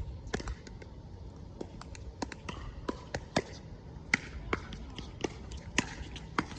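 Pickleball rally: paddles striking the plastic ball in sharp pops, the loudest about once a second, with fainter clicks in between.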